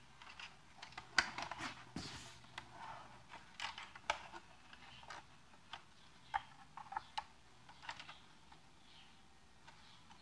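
Irregular faint clicks and knocks from hands working a loudspeaker tilt adaptor's knob and lever on a tripod stand as the cabinet is re-angled. Most of them fall between about one and eight seconds in.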